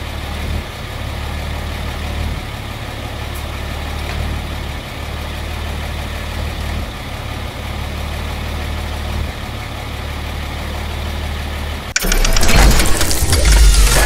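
1937 Terraplane pickup's engine idling steadily with a low hum. About twelve seconds in, it cuts suddenly to a much louder burst of intro music with a crash.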